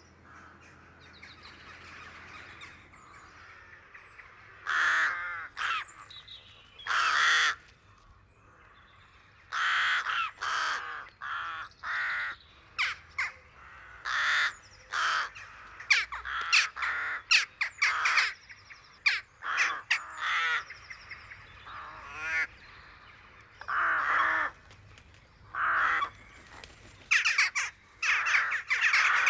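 Rooks and jackdaws calling at a rookery: harsh rook caws in irregular bouts, with a quick run of shorter, sharper calls through the middle.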